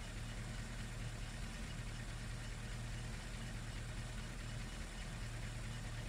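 Vintage Rolls-Royce car engine idling steadily, a low even running sound with no change in engine speed.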